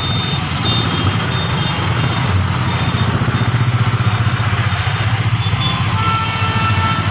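Bus engine running as the bus drives, heard from inside the cabin: a steady low rumble with road noise that throbs quickly for a few seconds in the middle.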